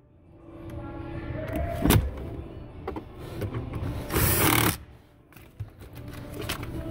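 Milwaukee cordless driver running screws back into a truck's glove box liner in short trigger pulls. A softer motor whine comes in the first couple of seconds, a sharp click near two seconds, and a brief loud run of about half a second about four seconds in as a screw is driven home.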